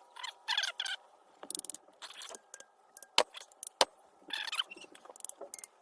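Small metal parts and tools clinking and scraping together while being handled, with two sharp clicks about three and a half seconds in.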